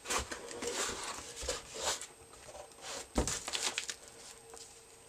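A cardboard mailer box being opened by hand, with irregular rustling of cardboard and paper packaging and one sharp knock a little over three seconds in.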